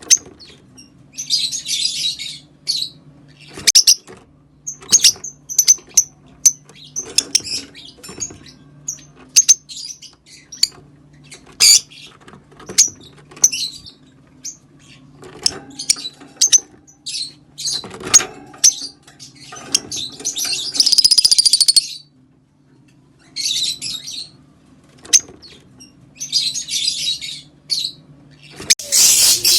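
Green Fischer's lovebirds chirping: many short, sharp high calls broken by rapid chattering stretches lasting a second or two, over a faint steady low hum.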